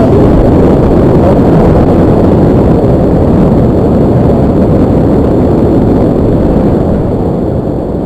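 Whitewater rapid rushing and crashing around a kayak, loud and steady, right at a bow-mounted action camera with spray hitting it. It eases slightly near the end.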